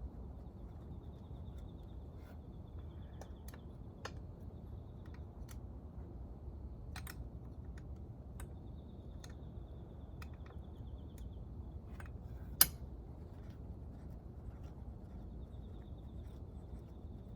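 Scattered light metallic clicks and clinks of tools and engine parts being handled during a motorcycle engine teardown, with one sharp, much louder click about twelve seconds in. A steady low hum runs underneath.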